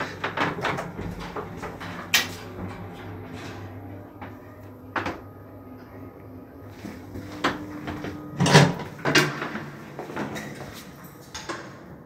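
Passenger elevator's doors and mechanism clicking and knocking over a low steady hum. A sharp knock comes about two seconds in and another about five seconds in, and the heaviest clatter comes about eight and a half to nine seconds in.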